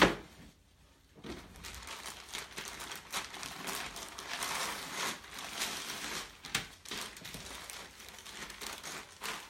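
Packaging crinkling and rustling as it is handled by hand during unpacking, starting about a second in, with a few sharper clicks among the crackle.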